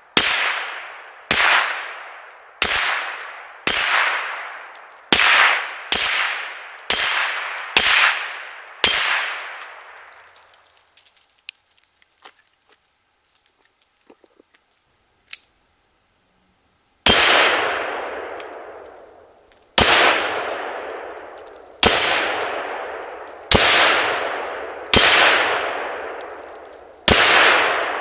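.22 rimfire shots hitting a hanging steel gong target, each hit a sharp clang with a long ring. About nine hits come a little over a second apart from a Ruger 10/22 rifle. After a pause of several seconds, six more hits about two seconds apart come from a Ruger Single Six .22 Magnum revolver.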